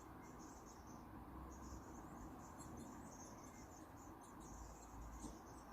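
Faint, high-pitched chirps and twitters of small garden birds, coming in quick clusters over a low background rumble.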